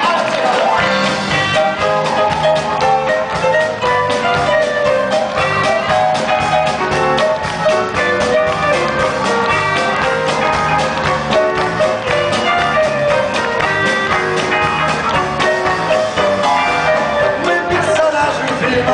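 A live rock band playing, with drums, bass and electric guitar; the bass and drums come in about a second in.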